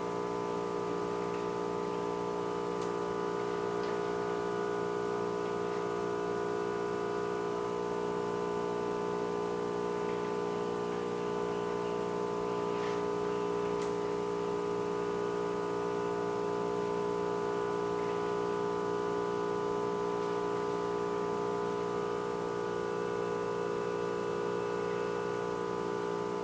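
Steady machine hum made of several held tones, unchanging throughout, with a few faint clicks.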